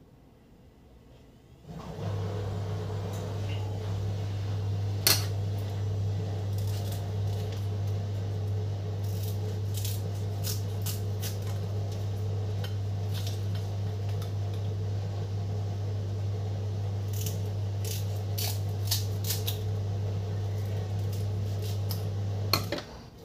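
Kitchen scissors snipping pandan leaves: sharp snips and clicks, one about five seconds in and many more through the middle of the stretch. Under them a steady low hum comes on about two seconds in and cuts off abruptly near the end.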